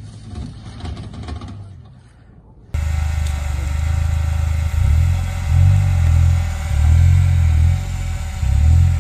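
An off-road 4x4's engine working up a loose dirt climb, fading after about two seconds. About three seconds in the sound cuts abruptly to a steady high whine over a low engine note that swells and eases several times.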